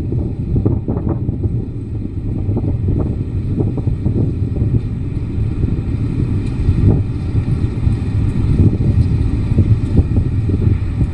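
Snowstorm wind buffeting the microphone: a loud, steady low rumble with irregular gusts.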